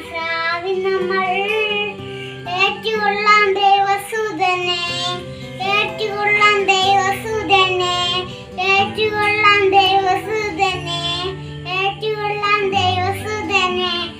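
A young child singing a song over instrumental backing music with steady low held notes.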